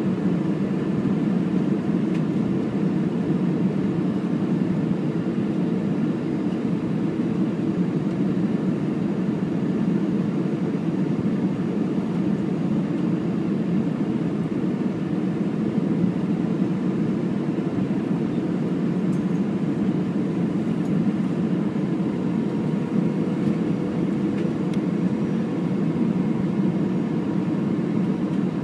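Steady cabin noise of an Airbus A320 descending on final approach: engine and airflow rumble heard from a window seat behind the wing, with a faint steady hum above it.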